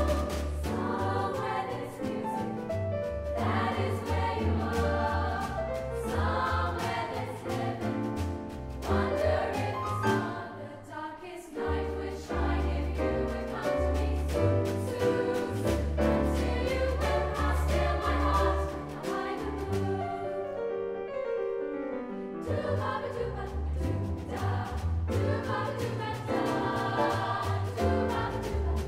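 Upper-voice chamber choir singing in parts over an upright double bass, whose low notes run beneath the voices. The bass drops out for a couple of seconds about two-thirds of the way through.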